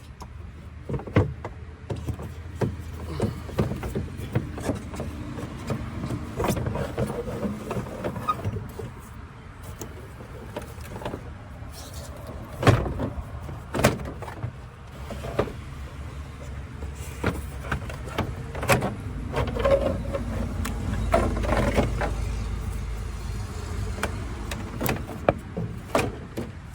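Irregular clicks, knocks and plastic clatter of hand tools and parts as the radiator fan shroud and coolant reservoir are unbolted and lifted out of an engine bay, over a low background rumble.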